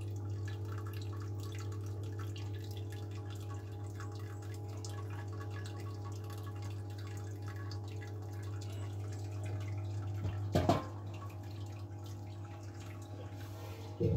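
Wort trickling and dripping from a recirculation return pipe onto the mash grain bed, over the steady hum of the recirculation pump. A brief knock comes about ten and a half seconds in.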